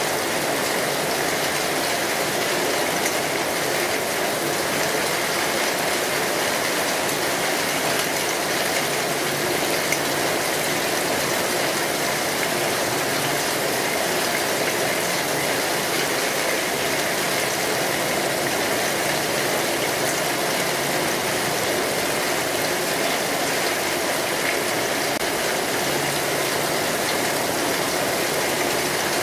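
Steady rain falling, an even hiss that holds constant with no pauses.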